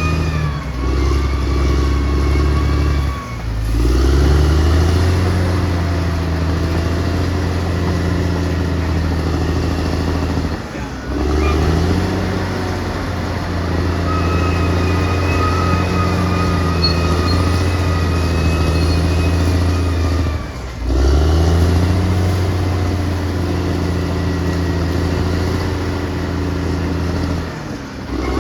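Caterpillar D6R XL bulldozer's diesel engine working under load. Its pitch drops and climbs back up about four times, roughly every eight to ten seconds, with a thin high-pitched whine heard at times.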